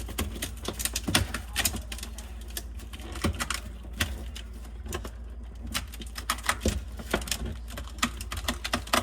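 Irregular plastic clicks and taps as a refrigerator's interior plastic panel is pried and worked at without coming loose, over a steady low hum. The panel is stuck, which she puts down to ice frozen behind it.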